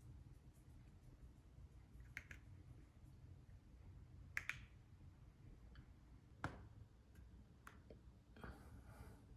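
Near silence broken by four small sharp clicks a second or two apart, then a brief rustle near the end.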